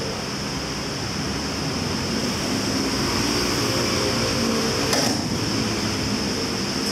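Steady mechanical hum and hiss, with a high steady band in the hiss, and a single sharp thump about five seconds in.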